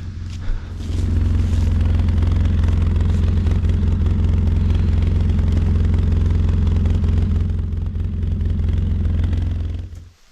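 A vehicle engine running with a steady, loud low drone. It comes in about a second in and cuts off suddenly near the end.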